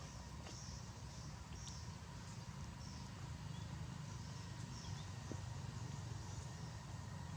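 Outdoor ambience: a steady low rumble with faint, short high chirps repeating every second or so and a few soft clicks.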